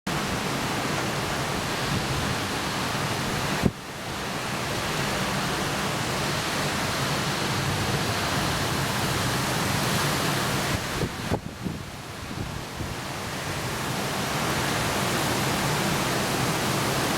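Heavy downpour driven by squall wind, a dense steady hiss of rain and wind. A sharp click about four seconds in is followed by a brief dip, and the hiss eases for a moment around eleven seconds in.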